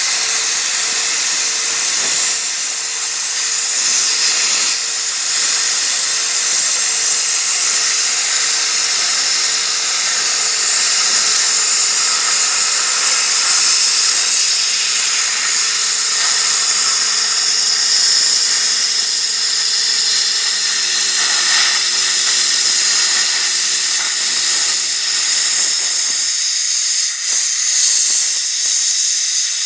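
Hypertherm Powermax 1000 plasma cutter cutting through a cast-iron lathe bed: a loud, steady hiss of the arc and air jet, with faint steady tones underneath that drop away after about 26 seconds.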